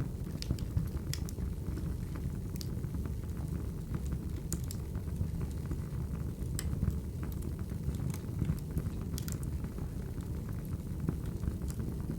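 Recorded wood fire crackling: a steady low rumble of burning logs with sharp pops and snaps scattered through it every second or two.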